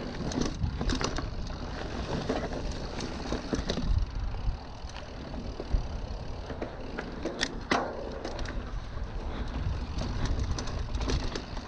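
Mountain bike riding down a dirt trail: the tyres rumbling over the ground and the bike rattling, with a few sharper knocks over bumps, the loudest about six seconds in. Wind buffets the microphone.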